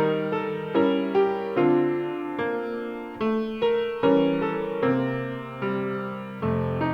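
Piano playing slow chords, each struck and left to fade before the next.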